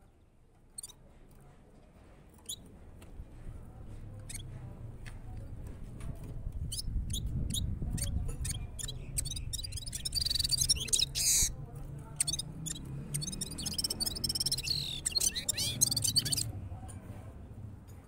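A caged gulsar finch gives scattered short chirps, then two bursts of fast twittering song in the second half. A low rumble runs underneath.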